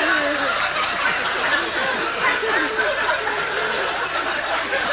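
An audience laughing and chuckling, many voices at once, with some chatter mixed in.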